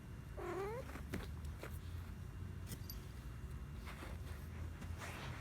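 A domestic cat gives one short meow about half a second in, then purrs steadily, close to the microphone.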